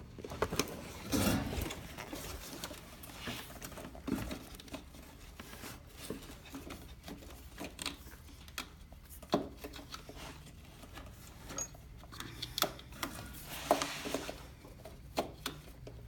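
Scattered light clicks, taps and rustles of hands and parts moving against the ATV's plastic and metal, with a louder scrape-like rustle about a second in and again near the end, over a faint low hum.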